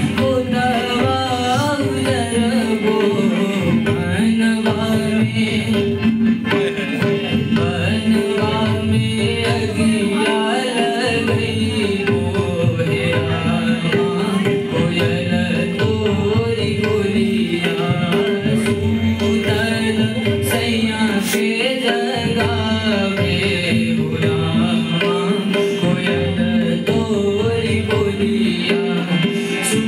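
A man singing an Indian folk song (lokgeet) to his own harmonium, accompanied by tabla. The music plays without a break, the melody moving over a steady harmonium drone and continuous drumming.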